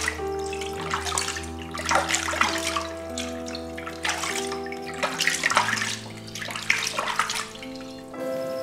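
Hands swishing and rubbing a wild mushroom in a bowl of water: irregular sloshing splashes, several a second at times, over soft background music. The splashing stops about eight seconds in.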